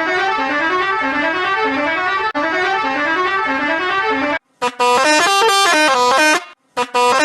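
Musical bus horn sound effect in edited variations. For about four seconds it plays as quickly repeated rising pitch glides. After a short break, a stepped multi-note horn tune plays twice, each cut off by a brief silence.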